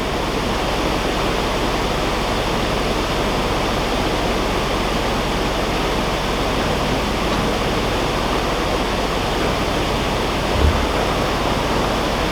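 Water rushing steadily through the open paddles of a canal lock as the lock fills or empties. A brief low thump about ten and a half seconds in.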